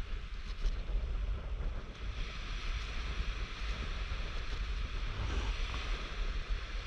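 Wind buffeting the camera microphone in uneven low rumbles, over a steady hiss of surf breaking on the beach.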